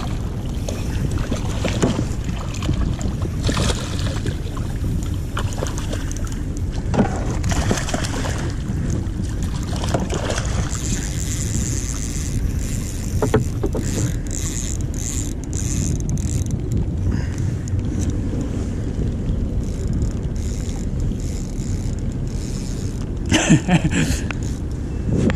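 Wind rumbling on the microphone aboard a small fishing boat, steady throughout, with scattered knocks and clicks and a few short hissing sounds, the most marked about half way through and near the end.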